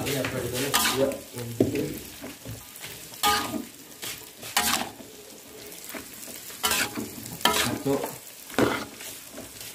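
A spatula stirring and scraping green beans and tofu around a wok as they stir-fry, with a sharp scrape against the pan every second or two over a quieter sizzle.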